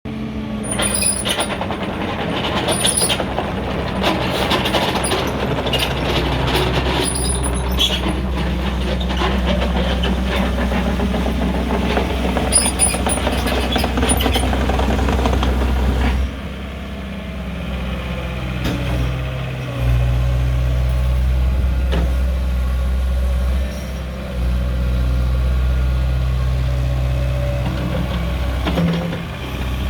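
JCB 48Z-1 midi tracked excavator's diesel engine running, with many metallic clanks and knocks over roughly the first half. After that the engine runs more steadily, dropping and picking up again a few times.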